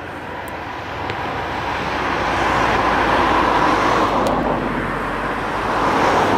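Vehicle noise, an even rushing sound that swells over the first two or three seconds and stays loud.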